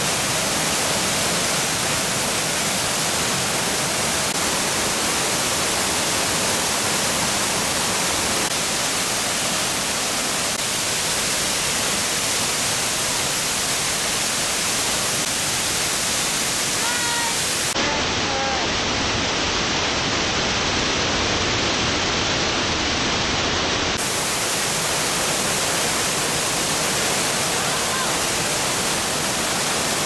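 Loud, steady rushing of a large waterfall, the Arvalem (Harvalem) falls, plunging about 50 m into a pool.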